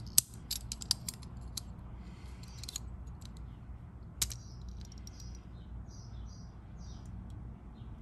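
Small metal clicks and scrapes of a brass barrel key being turned in an antique three-lever cabinet lock while its lever heights are test-fitted. The clicks come in a cluster in the first second, with one sharper click about four seconds in, over a low steady hum.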